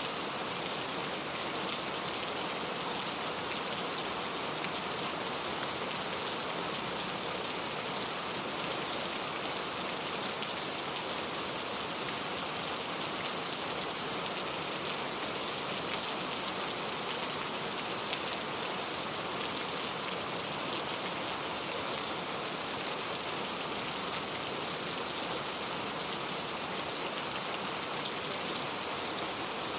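Steady rain falling, a dense, even patter of many drops that holds unchanged throughout.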